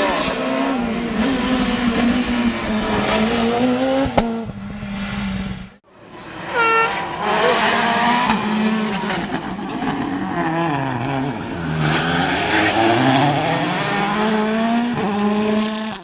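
Rally cars' turbocharged engines running hard past the roadside, in two passes split by a brief drop-out. The second, a Volkswagen Polo R WRC, drops in pitch as the driver lifts for a corner, then climbs again as it accelerates away. A sharp crack sounds about four seconds in, and a brief high whistle just after the drop-out.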